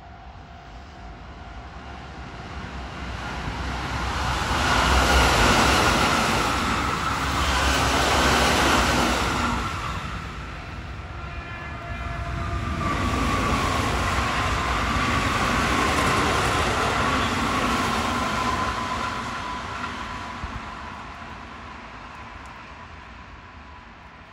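Keihan Main Line electric trains passing over a level crossing. The noise of wheels on rail swells and fades twice, loudest about five and fifteen seconds in, with a steady electronic crossing-bell tone ringing.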